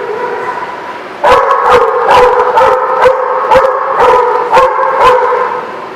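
Dog barking and yipping. It turns much louder about a second in, with sharp barks coming roughly twice a second.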